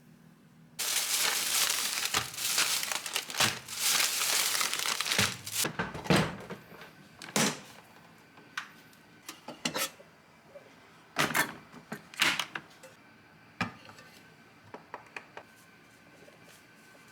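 Rustling and crinkling handling noise, continuous for about five seconds and then breaking into scattered clicks and knocks.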